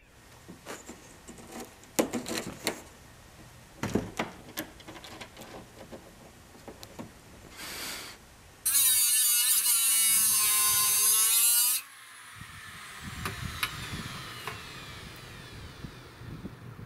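Scattered small clicks and knocks, then a handheld electric rotary tool runs loud and high-pitched for about three seconds. It cuts off, and a fainter falling whine follows as it winds down.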